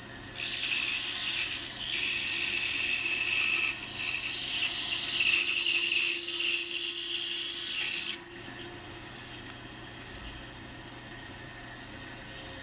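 Pegas scroll saw blade cutting through a wood block: a loud, high-pitched rasping buzz with two brief dips. It stops suddenly about 8 seconds in, leaving only a low steady hum.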